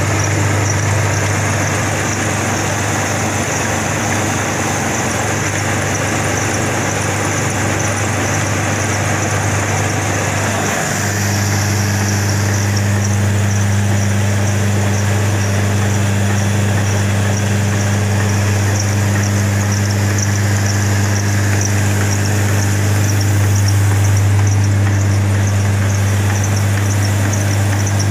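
Electric atta chakki (stone flour mill) running steadily: a deep hum with a faint high whine over it, the tone shifting slightly about eleven seconds in.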